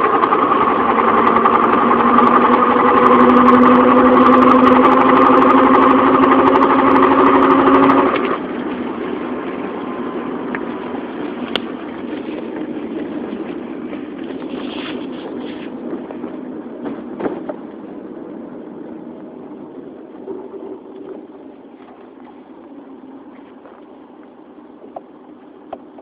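Cyclical whine from the front passenger side of a 1997 Subaru Legacy under acceleration, several tones rising slightly in pitch, which the owner suspects is the front differential rather than a wheel bearing or CV joint. About eight seconds in it drops away abruptly as the car coasts, leaving road noise that slowly fades.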